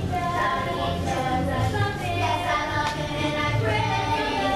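A song with a steady beat and a group of children singing along.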